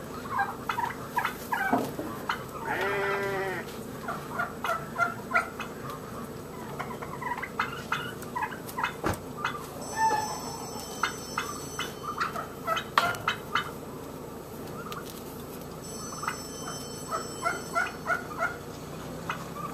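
Farm birds calling in repeated bursts of short, rapid notes, with one longer pitched call about three seconds in.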